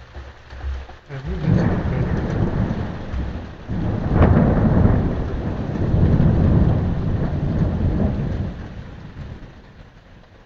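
A thunderclap from an overhead thunderstorm. A low rumble builds about a second in, a sharper crack comes about four seconds in, and it rolls on before fading out near the end.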